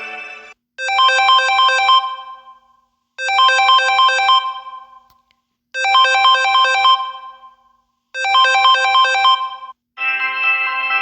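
Samsung Galaxy A50 stock ringtone-style tone: a short, bright, bell-like melodic phrase played four times, about every two and a half seconds, each dying away before the next. The end of another tone fades in the first half second, and a different tone starts near the end.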